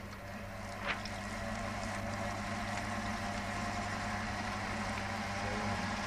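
Spin-dryer drum driven by its electric motor, running up to speed and then spinning steadily with a hum, while water sprays out through the slits in the drum.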